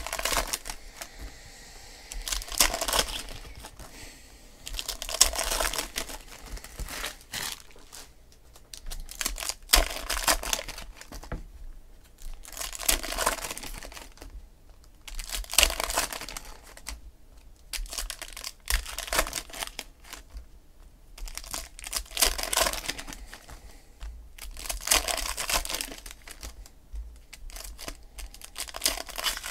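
Foil wrappers of Panini Select football card packs being torn open and crinkled by hand, in repeated bursts every two to three seconds.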